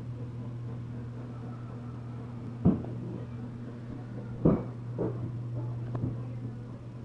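A steady low hum with a few dull thumps over it. The two loudest come about two seconds apart in the middle, with fainter ones after.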